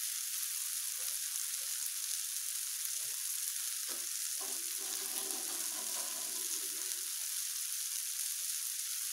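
Onion-tomato masala sizzling steadily as it fries in ghee in a pan on a gas stove.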